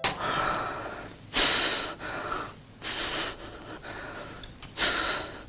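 A man gasping for breath, four deep gasps about a second and a half apart: he has just come up for air after being cut off from it underwater.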